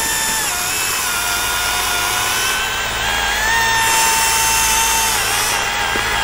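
Chainsaw making the back cut on a tree, its motor whining at high revs and dipping in pitch each time the chain bogs into the wood. A steady low hum runs underneath.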